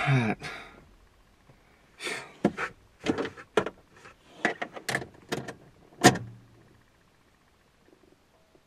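Car door handling: a loud sound falling in pitch dies away at the start, then a run of short clunks and rattles follows, the loudest about six seconds in, before it goes quiet.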